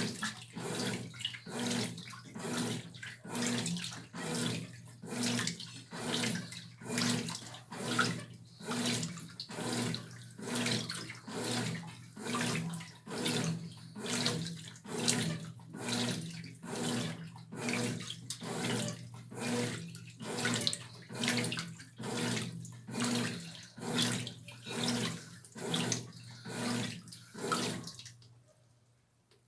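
Brastemp Tira Manchas Pro 12 kg washing machine agitating a load of clothes in water: a rhythmic sloshing swish about once a second over a steady low motor hum, the wash stage of the cycle. The agitation stops near the end.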